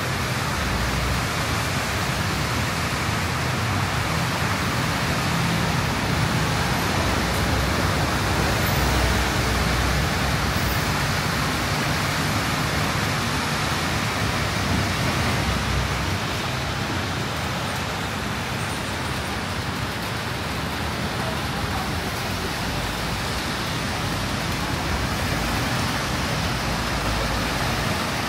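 Heavy rain pouring down as a steady, dense hiss, with a low rumble of road traffic underneath.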